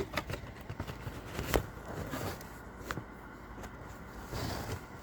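Handling noise from a phone being fiddled with: a few scattered light clicks and taps, the sharpest about one and a half seconds in.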